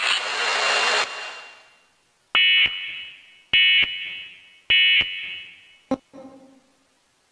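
Emergency Alert System end-of-message data bursts: three short, buzzy digital tone bursts about 1.2 s apart, each trailing off in an echo. A loud hiss cuts off about a second in, and a single click follows the bursts.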